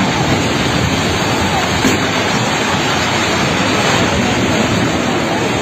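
Multi-storey apartment building collapsing: a loud, steady roar of falling masonry and rushing dust, with faint shouts in it.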